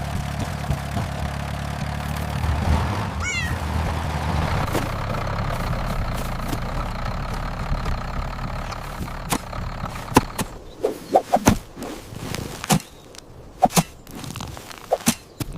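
Small mini-tractor engine running steadily for about ten seconds, then stopping, with a kitten mewing. After the engine stops comes a scattered run of sharp taps and soft thuds.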